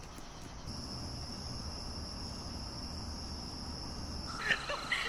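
Evening insect chorus of crickets trilling in one steady, high-pitched tone. A little over four seconds in it changes abruptly to a different chorus with a pulsing trill.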